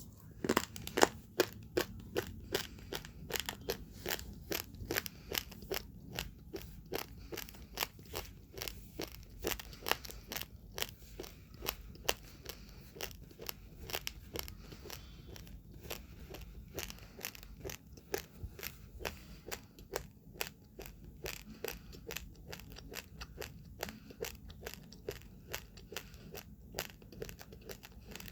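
Close-up crunching and chewing of uncooked rice grains, many sharp cracks a second, the loudest just after the start.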